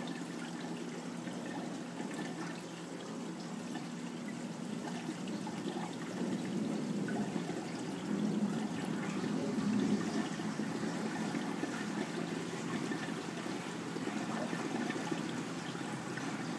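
Water gurgling and rushing down the PVC drain standpipes of a Bean Animal aquarium overflow, with air being drawn down along with it, as the water in the overflow box rises before the trapped air purges. It grows louder about six seconds in.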